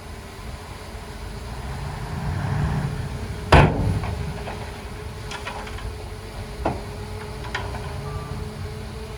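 Heavy earthmoving machinery with its diesel engine running steadily. A loud bang comes about three and a half seconds in, followed by several lighter knocks.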